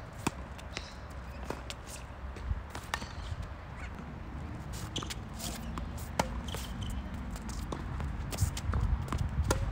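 Tennis rally on a hard court: a series of sharp pops from the ball striking racquets and bouncing on the court, about one every second or two, with footsteps shuffling between shots.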